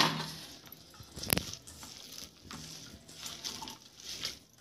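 A hand squishing and kneading a wet minced-chicken kebab mixture in a stainless steel bowl, in soft, irregular squelches. Two sharp clinks stand out, one at the very start and one about a second in.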